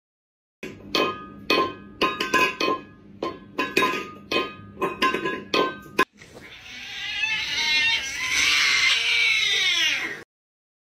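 A quick, uneven run of sharp hits with a ringing tone in them. At about six seconds it gives way to a cat's long screaming yowl, the screaming-cat meme clip, which builds over about two seconds, stays loud and cuts off suddenly near the end.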